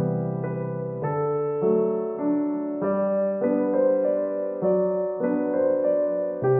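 Background music: soft piano playing a slow melody over sustained chords.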